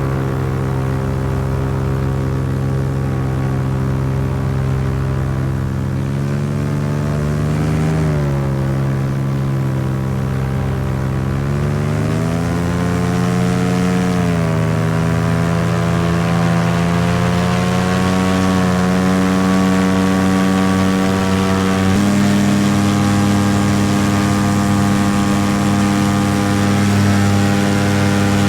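Paramotor engine and propeller running in flight, the pitch rising and falling a few times as the throttle is worked, then stepping up and holding at a higher speed near the end.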